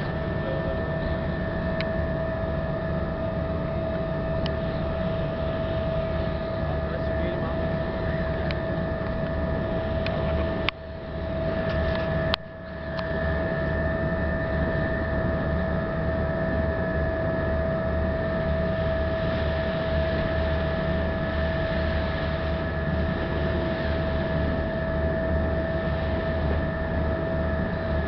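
Car ferry's engines running with a steady low drone and a constant hum. Two short clicks and brief dips in level come about eleven and twelve seconds in.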